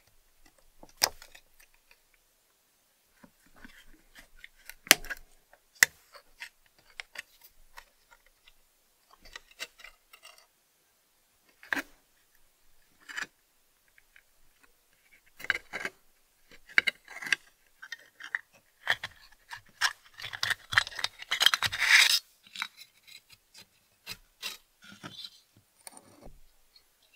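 Rusty metal parts of a French bicycle lantern from about 1905 being handled and taken apart by hand: scattered sharp metal clicks and short scrapes, thickening into a longer stretch of scraping and rattling around twenty seconds in.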